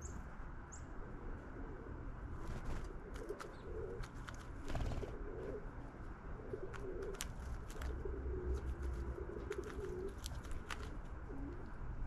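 Doves cooing in a string of low, wavering phrases, with short high ticks from small birds scattered among them over a steady low rumble.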